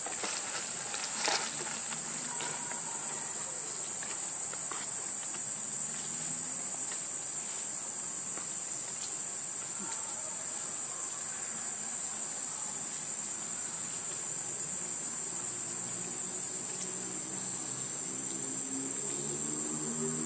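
Steady high-pitched insect drone of crickets or cicadas in the forest, with a single sharp click about a second in.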